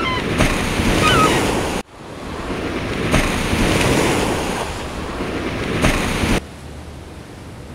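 Ocean waves rushing as a steady surf, with a few short high chirps in the first second. The rush cuts out abruptly about two seconds in, swells back, then drops suddenly to a faint hiss near the end.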